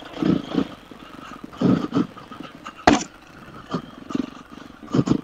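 350cc single-cylinder four-stroke dirt bike engine on a trail ride, its sound swelling and dropping in uneven short bursts as the throttle is worked, with one sharp knock about three seconds in.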